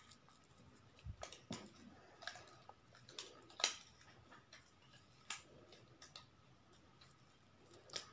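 Faint, scattered clinks and taps of a metal spoon against a bowl and a mug as thick whipped dalgona coffee is scooped and dropped onto milk, the loudest tap about three and a half seconds in.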